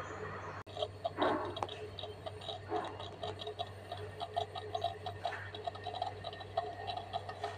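Aluminium 6-cup moka pot heating on a gas burner, giving off quick irregular ticks, several a second, as the water in its base heats before the coffee rises; a low steady hum lies underneath.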